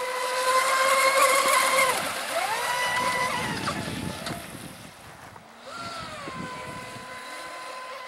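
Pro Boat Zelos 36 RC boat's twin brushless electric motors whining at speed on 6S LiPo power, with hissing spray off the hull. The whine holds steady, falls away about two seconds in, climbs again, drops near four seconds and rises once more about six seconds in as the throttle is worked.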